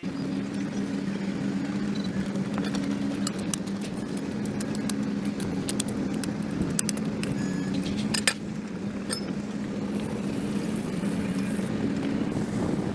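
A steady low motor hum with two held tones, over which come scattered sharp clicks and scrapes.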